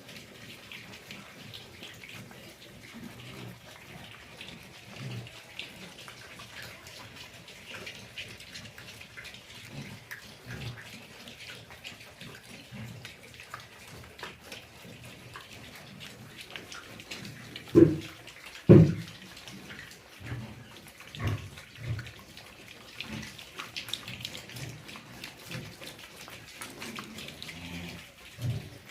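Large White pigs grunting in short low bursts over a steady watery hiss, with two much louder grunts about eighteen seconds in.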